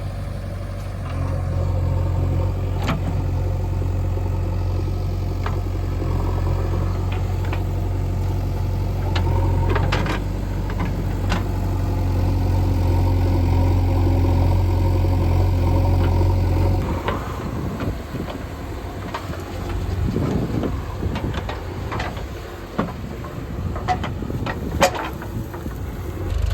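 Diesel engine of a JCB 3DX backhoe loader working, running steadily and louder for most of the time, then easing to a lower, rougher note about 17 seconds in. Scattered knocks and clanks throughout, one sharp one near the end.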